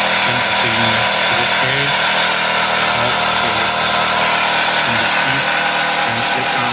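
Wilesco D20 toy steam engine running flat out at high revs: a steady, loud rushing hiss from the working double-acting cylinder.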